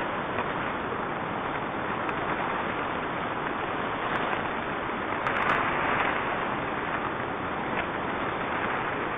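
Avalanche of snow rushing past at close range: a steady rushing noise that swells a little about five and a half seconds in.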